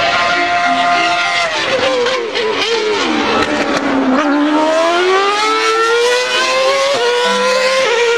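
Formula One race car engine sound, high-pitched. The pitch holds, drops from about two to four seconds in, then climbs steadily again as it revs up.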